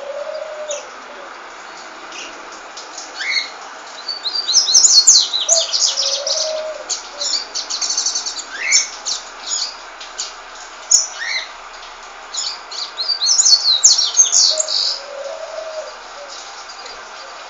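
Pet birds chirping and twittering, with two bouts of rapid high trills and scattered short rising calls, and a few low soft notes now and then.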